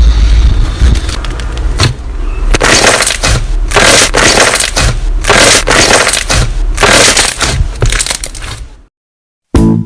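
Crunchy slime being squeezed and pressed, giving loud crackling crunches in repeated bursts about once a second, which stop abruptly near the end.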